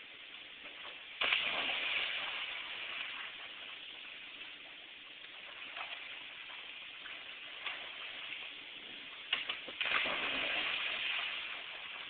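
Splashes in an above-ground backyard pool: a sudden big splash about a second in that washes down over a couple of seconds, then a second big splash near the end.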